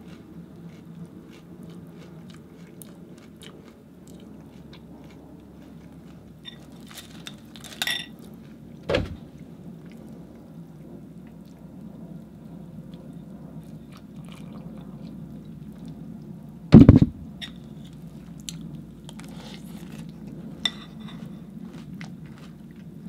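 Cheerios cereal being chewed with crunching, and a spoon clinking against a bowl. Two louder knocks come about nine and seventeen seconds in.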